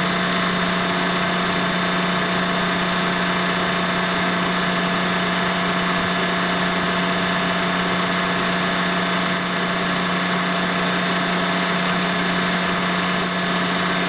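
Large John Deere farm tractor's diesel engine idling steadily, an even, unchanging hum.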